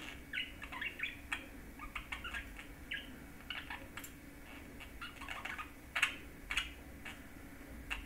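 Budgerigar chattering into a bell toy: a quick, varied run of short chirps and warbling notes, with a few sharp clicks mixed in, the loudest about six seconds in.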